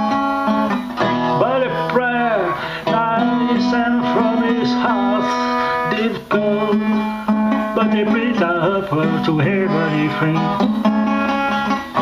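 Blues guitar music: a plucked guitar playing a melody over steady low notes, many of its notes bending up and down in pitch.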